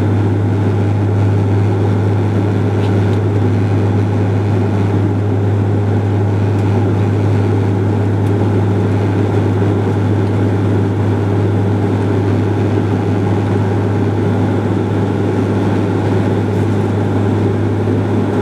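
Cabin noise of a Bombardier Q400 turboprop climbing after takeoff: the steady, loud drone of its propellers, a deep even hum over engine and airflow rush, heard from a window seat beside the engine.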